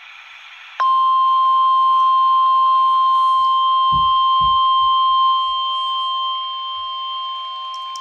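NOAA Weather Radio's 1050 Hz warning alarm tone sounding from a radio receiver's speaker: a low hiss, then a single loud steady tone that starts suddenly about a second in, announcing that a warning is about to be read. The tone gets quieter in two steps in the second half.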